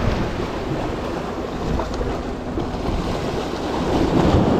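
Choppy sea waves washing and breaking against rocks, with wind buffeting the microphone; the surge swells briefly near the end.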